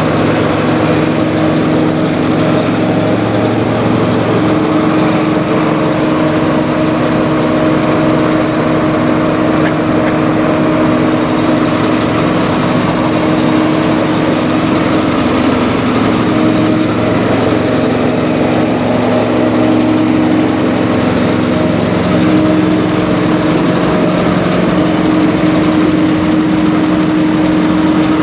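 Semi-truck diesel engines idling: a steady, even drone with several low hum tones held throughout.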